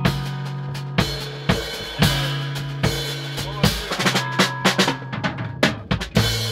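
A rock trio jamming live: the drum kit keeps a beat of about two hits a second, with a fill of quick hits near the middle, over sustained electric bass notes and electric guitar.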